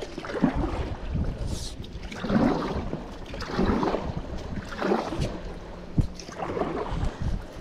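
Stand-up paddle board paddle strokes splashing through river water, one swell about every second and a half, with a single sharp knock about six seconds in.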